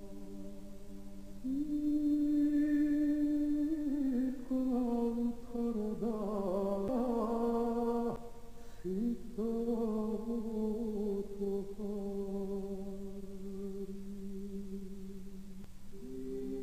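Slow, ambient background music of long held tones over a low drone. A second tone comes in about a second and a half in, and the pitches slide about in the middle.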